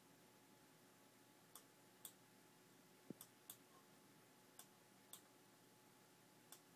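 Near silence: a faint steady hum with about eight light, sharp ticks at uneven intervals, from a homemade infrared heater rig as it heats up.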